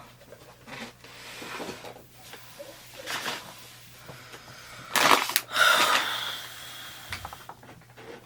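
Rummaging: objects being handled and moved about, with scattered rustles and knocks, the loudest clatter about five seconds in.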